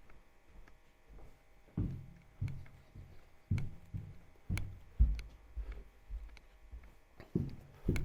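Footsteps going down a staircase: a run of dull thumps about two a second, with a short pause partway through.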